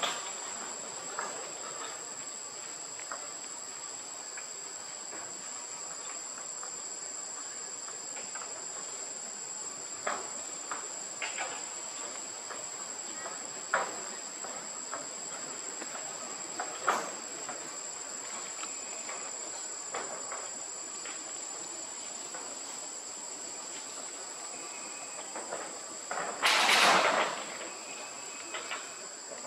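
Steady high-pitched drone of insects in the forest, with a few scattered faint clicks. Near the end a louder scratchy noise lasts about a second.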